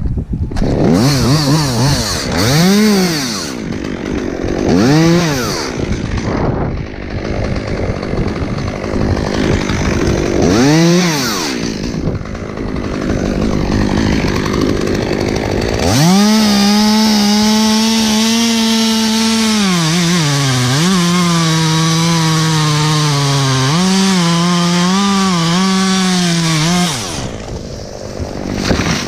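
Chainsaw revving in three short throttle bursts, then held at high revs for about eleven seconds while cutting into hackberry wood. Its pitch sags briefly under load partway through the cut, and it drops back to idle near the end.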